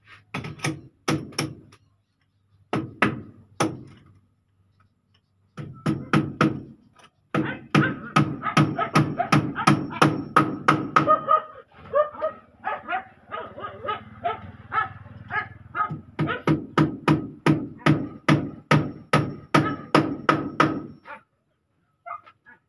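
Hammer driving nails into a wooden door frame, in runs of quick blows about two to three a second, with short pauses between the runs.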